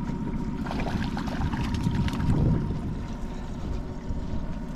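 Steady low rumble of a trolling boat's outboard motor, with water splashing and lapping against the boat, a cluster of light splashes about a second in.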